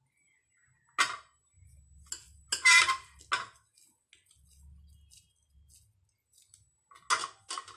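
Short metallic clinks and taps on a stainless steel bowl as a hand scoops and presses the poha mixture into dumplings. There is one clink about a second in, a louder cluster around the middle and a last pair near the end, with faint handling rustle between them.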